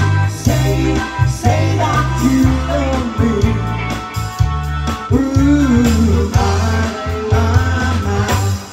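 Live cover band playing a pop-rock song: electric guitar, bass guitar, drums and keyboard, with women singing the melody. The bass line is prominent, and the music drops away near the end.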